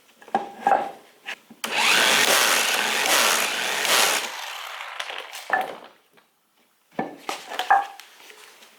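Blade nut on the mower being tightened: a power tool runs steadily for about two and a half seconds, beginning a second and a half in, with knocks and clatter of tool and wood before and after it.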